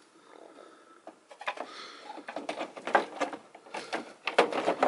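Hard plastic clicking and knocking as the Chevy Aveo's front grille and upper plastic cover panel are pressed and test-fitted into place. The irregular clicks start about a second in.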